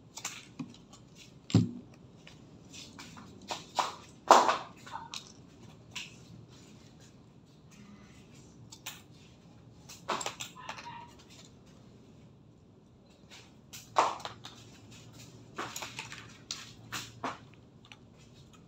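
Scattered clicks, taps and light clatter of broken plastic CD pieces being picked up and set down on fabric and a tabletop, with a sharp knock about a second and a half in and small clusters of clicks around four, ten and fourteen seconds in.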